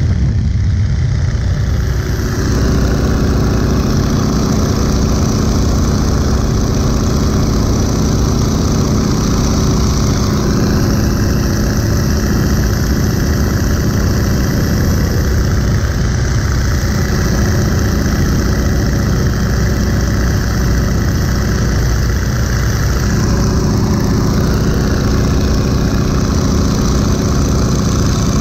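Boeing Stearman biplane's radial engine and propeller running steadily in flight, heard from the open cockpit with wind rushing past. The level holds even and unbroken.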